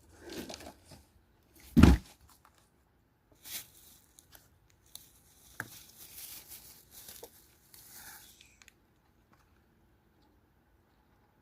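Cardboard and styrofoam packing being torn and pulled apart, with rustling and crinkling. One loud sharp knock about two seconds in, and the last few seconds go quiet.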